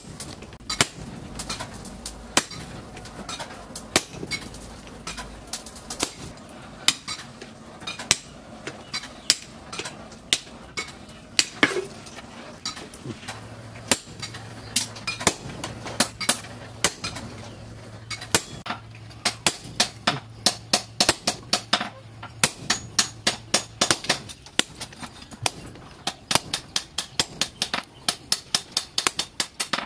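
Hammer blows on a hot-cut chisel held in tongs against glowing steel on a steel post anvil, cutting a piece off the hot workpiece. The strikes are sharp and ringing, spaced irregularly at first and coming faster, about three a second, in the second half.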